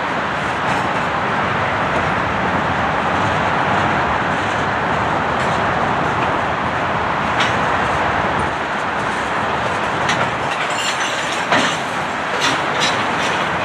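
Freight train cars rolling past close by: a flatcar loaded with a streetcar, then covered hoppers and tank cars, with a steady rumble of wheels on rail. Several sharp clicks and clanks come in the second half.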